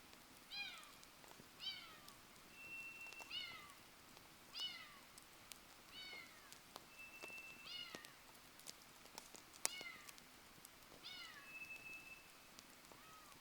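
A cat meowing repeatedly, about nine short falling calls a little over a second apart, faint and distant, with scattered sharp crackles from a campfire.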